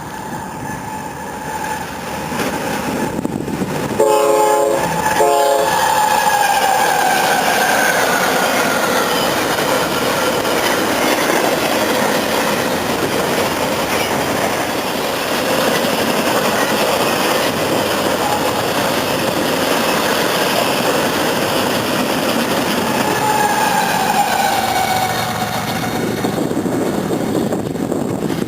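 Train horn sounding briefly about four seconds in, then a train passing close by with a steady rumble and clatter of wheels on rail. A squealing tone slides downward twice, before the sound eases off near the end.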